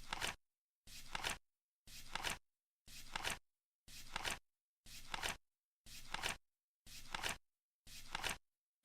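Flip clock ticking off the seconds: once a second a card flips over with a short rustling clatter that ends in two quick clicks, nine times in a steady rhythm.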